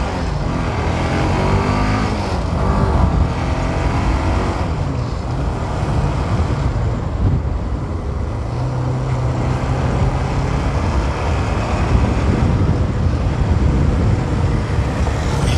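Motorcycle engine under way, heard from the rider's seat: its pitch rises and falls several times over the first few seconds as it accelerates and shifts, then holds steady for a while. Steady rushing wind and road noise runs underneath.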